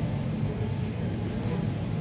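Steady low rumble of indoor roller hockey rink ambience, with play going on at the far end of the floor.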